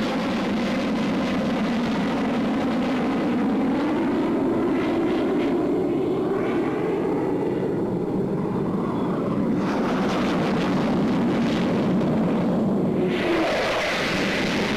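English Electric Lightning jet fighters in flight, a continuous jet roar whose tone sweeps slowly as in a flyby. It grows brighter and harsher near the end.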